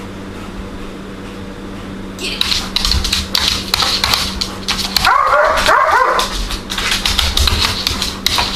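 Doberman's claws tapping and skidding rapidly on a laminate floor as it chases a laser dot, starting about two seconds in, with a few high whining yips from the dog around the middle.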